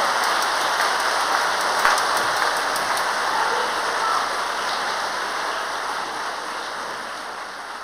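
Theatre audience applauding, a dense even clapping that gradually fades away in the second half.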